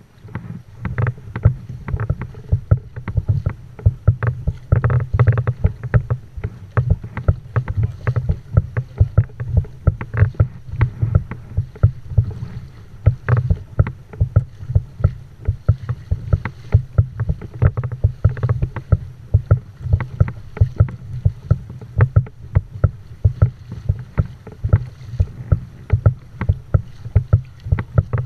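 Kayak under way through choppy sea: many irregular knocks and splashes of water against the hull, several a second, over a steady low rumble.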